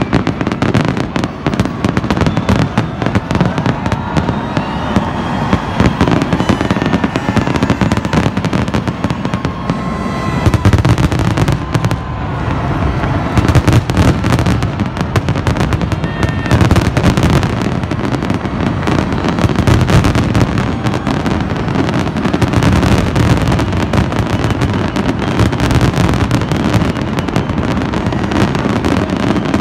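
Fireworks display: a rapid, unbroken barrage of aerial shell bursts and crackling, a little denser from about ten seconds in.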